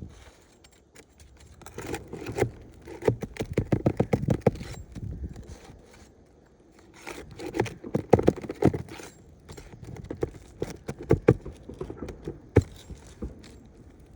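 Pry bar scraping and clicking against asphalt shingles while working roofing nails loose, in three bouts of quick strokes with short pauses between.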